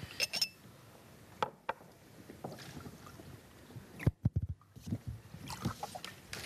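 Microphone handling noise as the guests settle in: scattered clicks and rustles, then a cluster of heavy bumps about four seconds in.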